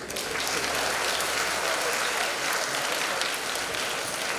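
Audience applauding: many people clapping, which starts suddenly and holds steady.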